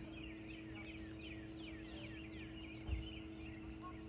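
Several songbirds chirping and singing at once, with many quick, mostly falling notes, over a steady low hum. There is a brief low thump about three seconds in.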